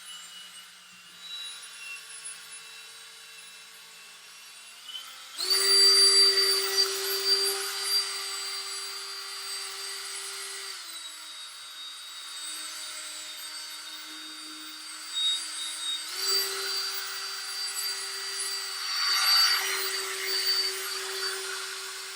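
Electric drill spinning a foam polishing pad with polishing compound against a plastic headlight lens. It is quiet for the first few seconds, then starts up loudly about five seconds in and runs steadily. Its pitch drops for a few seconds around the middle, as if slowed under pressure, then rises again.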